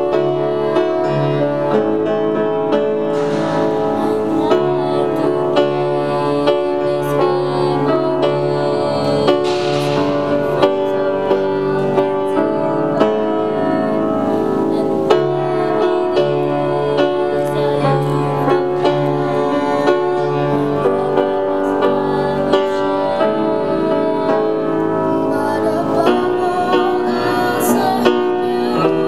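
Slow instrumental accompaniment music: held chords over a low bass line that comes and goes.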